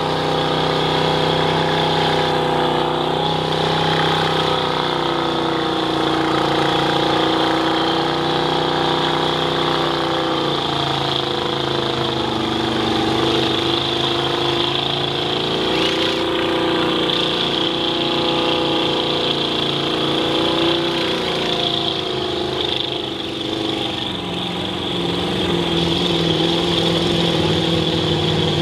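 Ford mud truck's V8 engine running hard as the truck churns through deep mud, its pitch rising and falling with the throttle, easing off briefly near the end.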